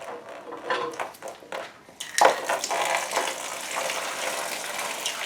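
A few light metallic clinks on the engine, then from about two seconds in a steady trickling stream of water running out of the engine as the oil pan is being removed.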